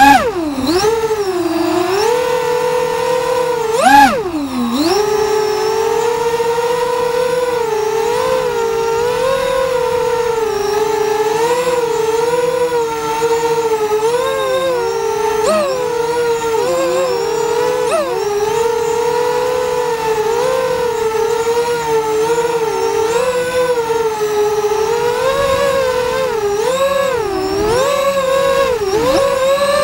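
Eachine Falcon 210 quadcopter's brushless motors and propellers whining in a hover, the pitch wavering constantly as the flight controller and throttle make corrections. A sharp throttle punch swoops the whine up and back down at the very start and again about four seconds in.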